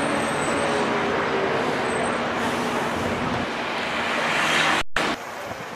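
Engine and traffic noise from the open top deck of a moving tour bus, a steady rumble and hiss that swells briefly before breaking off suddenly near the end to a quieter background.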